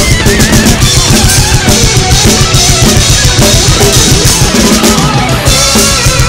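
Drum kit played fast along with a heavy metal track: rapid bass drum, snare and cymbal strokes, under a lead melody that bends and wavers in pitch.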